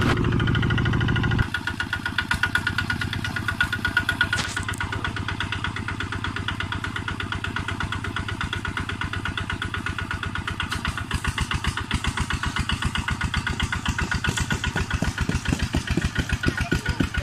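Walking tractor's single-cylinder diesel engine chugging with steady, evenly spaced firing beats. The level drops about a second and a half in, and the beats grow louder over the last few seconds.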